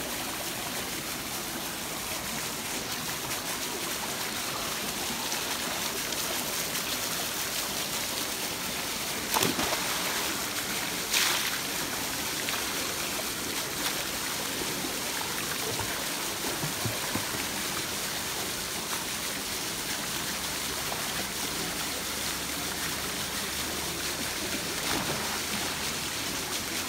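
Steady rush of a swimming-pool fountain pouring water onto the pool surface, mixed with swimmers splashing. There are two louder splashes near the middle.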